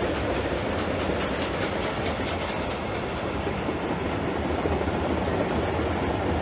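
Long mixed freight train of open wagons, tank cars and container flats rolling past at steady speed: a continuous rumble of wagon wheels on the rails with light clatter.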